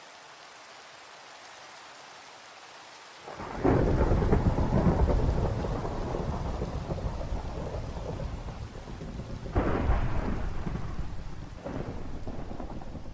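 Thunderstorm: steady light rain, then about three seconds in a thunderclap breaks into a long low rumble that slowly fades. Two more thunder rolls follow near the end, the second weaker.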